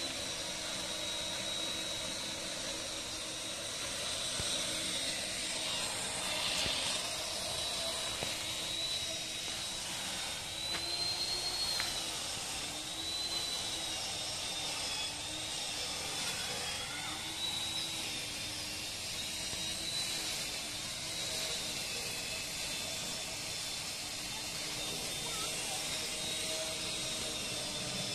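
A steady mechanical drone with a high whine that slowly wavers in pitch.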